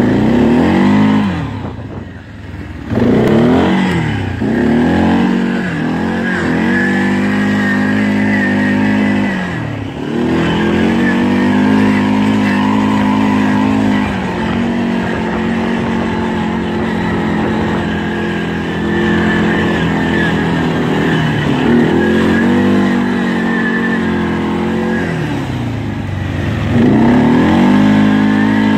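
Arctic Cat 550 ATV's single-cylinder four-stroke engine running under way, its pitch falling and climbing again several times as the throttle is eased off and opened.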